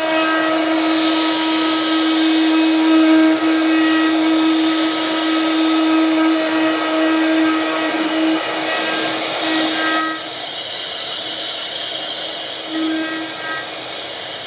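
Electric woodworking machine running, a steady motor whine under a rushing noise; the sound drops noticeably about ten seconds in.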